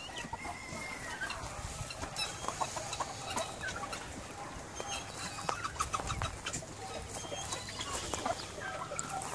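Chickens clucking quietly on and off.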